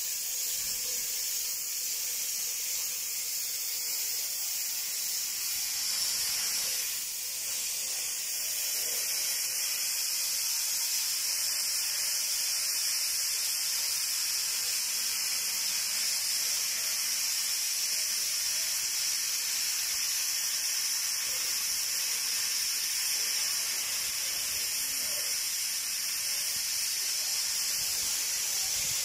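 Oxy-acetylene cutting torch hissing steadily as its flame and oxygen jet cut through a steel pipe wall, a little louder from about eight seconds in.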